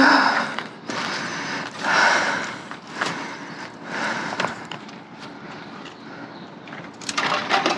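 Rummaging through trash: irregular rustling and scraping of handled items, with scattered sharp knocks and clicks.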